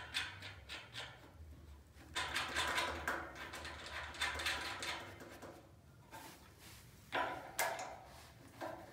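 Plastic and metal parts of a manual tile cutter being handled and fitted by hand: a few clicks, then several seconds of rubbing and scraping, and two sharp knocks about seven seconds in.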